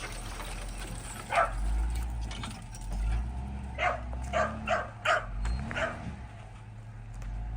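A dog barking, about six short barks: one, then a quick run of five in the middle, over a steady low rumble.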